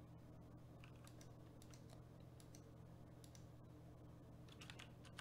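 Near silence: faint, scattered computer keyboard typing over a steady low electrical hum, the clicks coming a little more often near the end.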